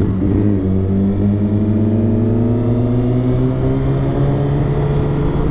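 Sport motorcycle engine pulling under steady throttle, its pitch slowly rising as the bike gathers speed, with wind rushing over the microphone; near the end the note drops briefly, as at a gear change, and starts climbing again.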